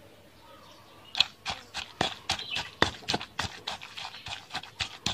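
Pestle pounding curry paste in a granite mortar: dull, even strikes at about three a second, starting about a second in.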